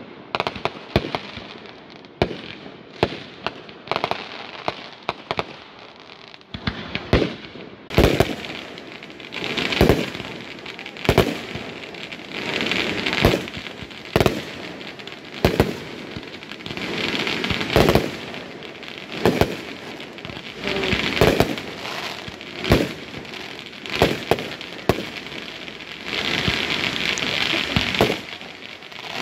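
Aerial fireworks display: a run of sharp booms from shells bursting, roughly one a second. Crackling stars fill the gaps between them, getting thicker from about eight seconds in.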